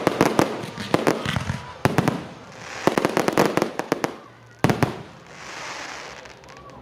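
Fireworks display: shells bursting in quick clusters of sharp cracking reports, several volleys in a row, fading to a softer crackling hiss near the end.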